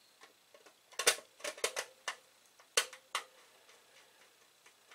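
Sharp clicks and taps of fingers and small parts against the metal shielding of an Amiga 1000: a quick cluster about a second in and two more near three seconds, some leaving a short metallic ring.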